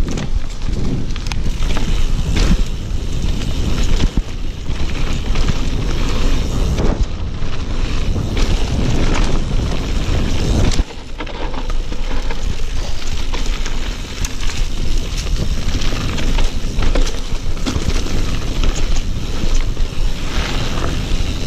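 Yeti SB6c full-suspension mountain bike running fast down a dirt trail: steady wind buffeting on the action camera's microphone over tyre rumble on dirt, with frequent clicks and rattles from the bike.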